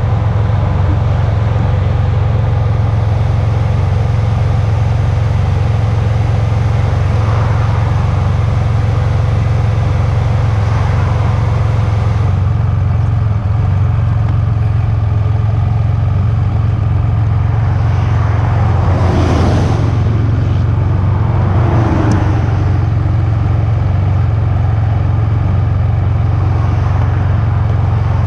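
Highway traffic: a steady loud low rumble, with vehicles passing close by twice, about two-thirds of the way in and again a couple of seconds later.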